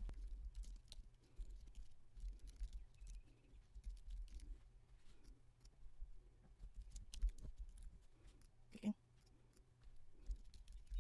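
Faint typing on a computer keyboard: irregular key clicks over a low, steady hum.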